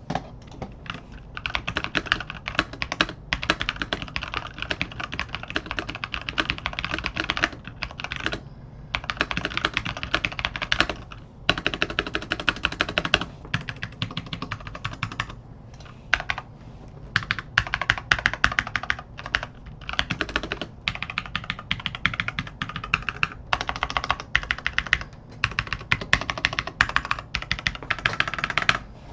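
Typing on a Logitech G413 SE mechanical keyboard with tactile switches: fast, continuous runs of key clicks broken by short pauses.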